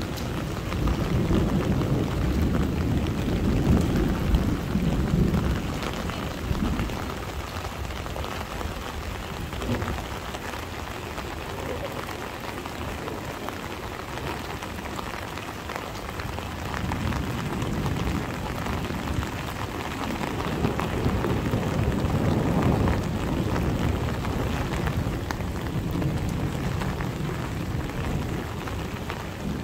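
Heavy summer rain pouring down steadily, with thunder rumbling low twice: for several seconds near the start and again about two-thirds of the way through.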